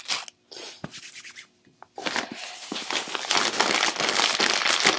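A few short rustles, then from about two seconds in a loud, continuous crinkling of a plastic Cheetos chip bag as it is picked up and handled with gloved hands.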